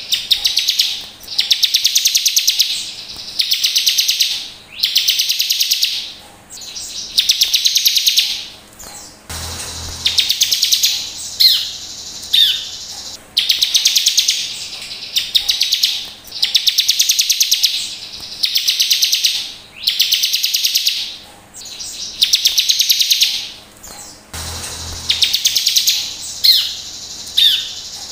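Bar-winged prinia (ciblek) calling over and over: rapid high trills of about a second each, roughly one a second, twice broken by a few sharp falling notes.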